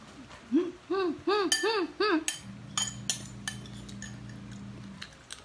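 Metal spoon clinking and scraping against a glass bowl during eating. In the first two seconds a woman hums five short notes, each rising and falling. A steady low hum sits underneath in the second half.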